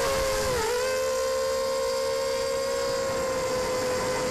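Brushless motors spinning six-inch Gemfan 6030 propellers on a 250-size FPV quadcopter, whining steadily in flight, recorded on board. The pitch dips briefly about half a second in, then holds level.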